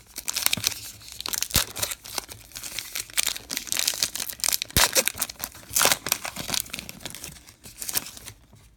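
Wrapper of a 2018 Topps Heritage Minor League baseball card pack crinkling and tearing as it is opened by hand: a dense run of sharp crackles that stops shortly before the end.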